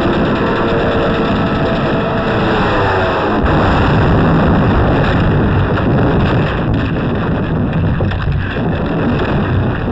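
Air-raid battle sound: a falling whine over the first few seconds, then a bomb blast about three and a half seconds in, followed by a heavy continuing rumble of the bombardment.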